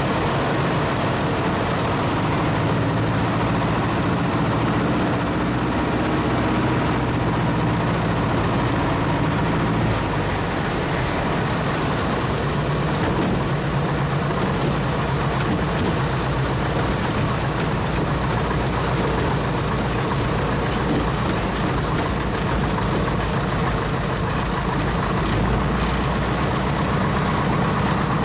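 Piper Super Cub's engine, heard from inside the cockpit, running at low power on the final approach and through the rollout on a sand beach. The note changes about ten seconds in and then holds at a steady idle.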